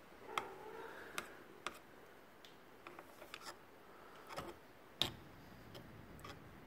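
Faint, irregular clicks and taps from handling small parts and tools during bench work on a brushcutter gearhead, with one sharper tap about five seconds in.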